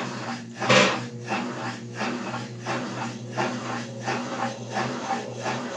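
Electrolux LBU15 top-loading washing machine starting its spin cycle: a steady motor hum with a regular swish about three times every two seconds as the basket turns.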